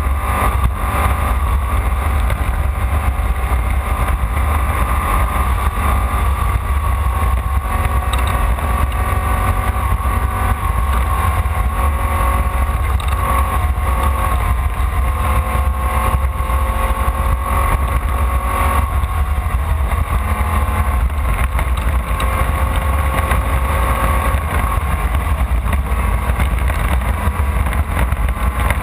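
Off-road race car's engine running hard, heard from on board, over a heavy low rumble. Its pitch drifts slowly up and down with the revs.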